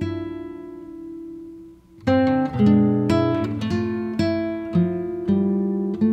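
Gentle instrumental background music of plucked notes and chords that ring and fade. A held chord dies away over the first two seconds, then a new phrase of separate plucked notes begins.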